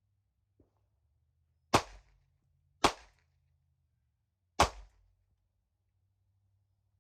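Three pistol shots, sharp and brief: two about a second apart, then a third after a pause of about a second and a half.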